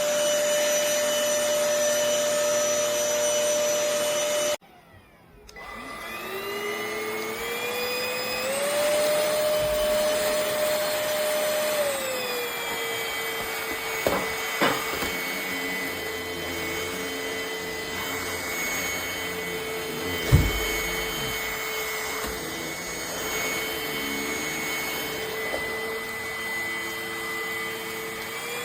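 Cordless stick vacuum motor running with a steady whine, switched off about four and a half seconds in, then spinning back up with a rising whine. It holds a high pitch, then drops to a lower, steady speed. A few knocks come along the way, the loudest about twenty seconds in.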